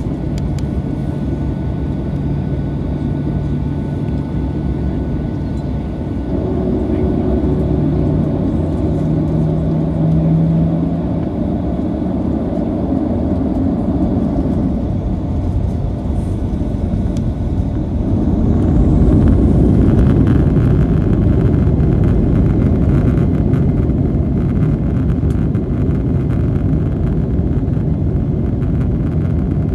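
Boeing 737-800's CFM56-7B turbofans heard from inside the cabin as the jet lines up and starts its takeoff roll: the engines run steadily, step up about six seconds in, then spool up to takeoff thrust with a rising whine about nineteen seconds in. After that, a heavy rumble and cabin rattling build as the aircraft accelerates down the runway.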